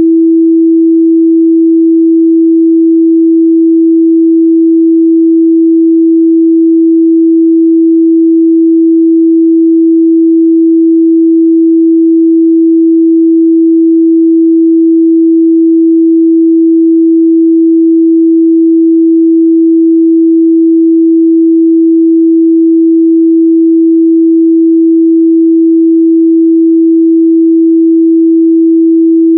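A pure 328 Hz sine-wave test tone, one steady unbroken pitch in the midrange, held at a constant loud level.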